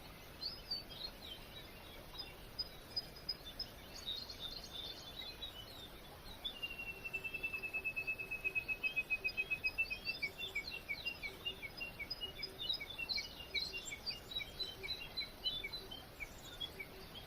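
Small birds chirping and calling, with a fast, even trill of rapid notes on one pitch lasting about three and a half seconds, starting about a third of the way in, followed by quick repeated chirps.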